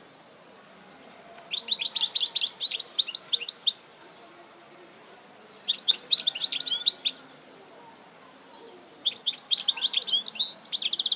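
European goldfinch singing: three phrases of rapid, high twittering notes, each about two seconds long with short pauses between, the last ending in a fast trill.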